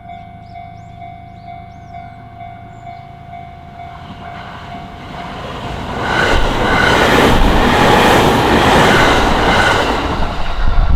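Japanese level-crossing warning bell dinging at a steady beat while a JR Hachiko Line train approaches and passes. The train grows louder from about four seconds in, and from about six seconds its wheels clatter rhythmically over the rail joints, loud enough to bury the bell.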